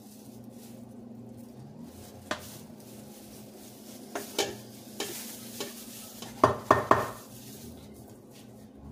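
A spatula spreading thick batter in metal loaf pans: soft scraping with scattered clicks and knocks of the spatula against the pans, the loudest a quick run of three knocks about six and a half seconds in.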